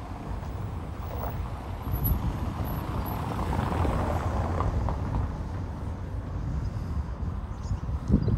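A motor vehicle passing on the street, its engine and tyre noise swelling to a peak about halfway through and fading again over a steady low rumble.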